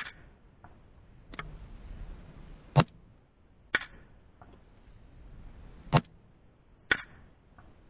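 Rifle firing: a string of sharp, short reports about every one to three seconds. The loudest come at the start, about three seconds in and about six seconds in, with fainter cracks between them.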